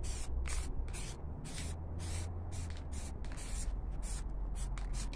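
Aerosol can of black primer spraying in short, quick hisses, about three a second, as the nozzle is pressed and released over the copper pipe, with a steady low rumble underneath.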